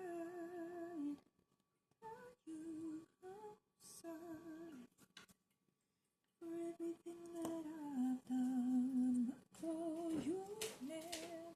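A woman humming a slow tune in long held notes with pauses between phrases, with a few light clicks near the end.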